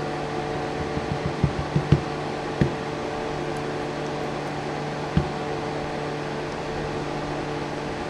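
Small, sharp clicks and taps of pin-tumbler lock parts, the driver pins and springs, being handled on a hard surface. They come in a quick cluster between one and two seconds in, once more shortly after, and once near the middle, over a steady mechanical hum.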